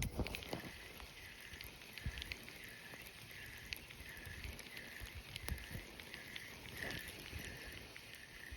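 Fishing reel being cranked on a slow retrieve: a faint rhythmic whir, about two turns a second, with scattered light clicks.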